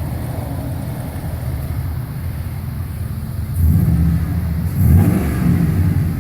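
Exhaust of a 2005 Chevrolet Silverado HD's 6.0 V8 running through true dual exhaust with two-chamber Flowmaster Super 44 mufflers: a steady low rumble that gets louder about three and a half seconds in and swells further near five seconds, as with a blip of the throttle.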